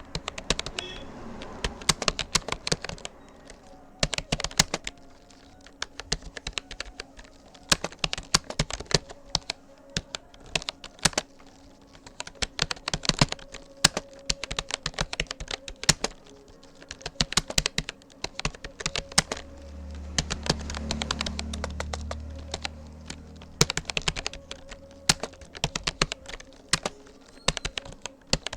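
Fast typing on a Rapoo computer keyboard: rapid runs of key clicks in bursts with brief pauses between them. A low rumble swells and fades in the middle.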